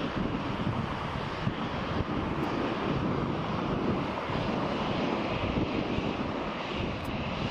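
Jet airliner engines running at taxi power: a steady rumble and hiss, with wind gusting on the microphone in the low end.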